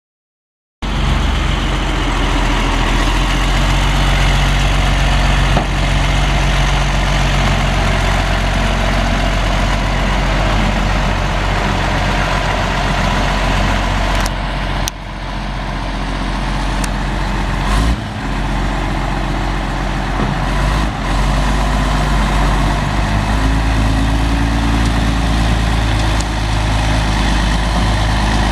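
A Ford 7.8 L inline-six turbo diesel in a 1988 Ford LN8000 feed truck, running steadily as the truck drives. The engine sound cuts in just under a second in, and its level dips briefly about halfway through.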